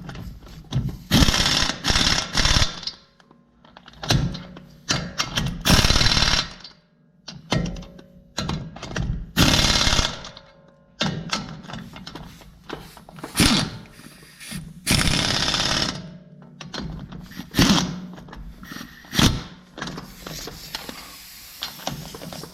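Impact wrench hammering 19 mm lug nuts down in repeated short bursts with brief pauses between, pressing a hub-piloted wheel spacer onto a pickup's hub.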